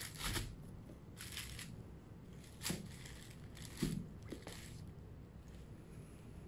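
Tissue paper crinkling in short rustles as a pair of sneakers is handled and shifted on it, with a couple of soft knocks from the shoes midway.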